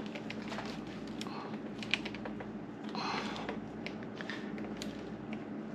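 Light clicks, taps and scuffs of hands working a motorcycle's clutch lever and cable, with a sharper tick about two seconds in and a brief scuffle around the middle, over a low steady hum.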